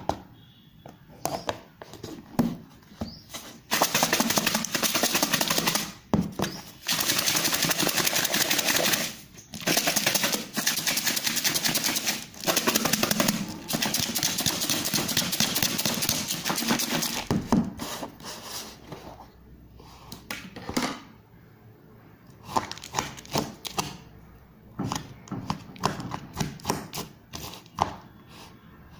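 Close-miked eating sounds of spicy Wai Wai instant noodles: several long, noisy slurps of noodles, each a few seconds long, followed by a run of short, wet chewing clicks near the end.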